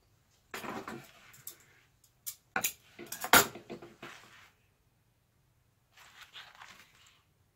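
Hands handling seat-cover material and sewing tools at a stopped sewing machine: rustling and light metallic clicks in irregular clusters, with a sharp click about three and a half seconds in.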